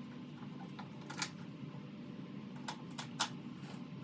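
A few light, sharp clicks and taps of small screws and hand tools being worked on a car spoiler, over a low steady hum: one about a second in, then three close together near the end.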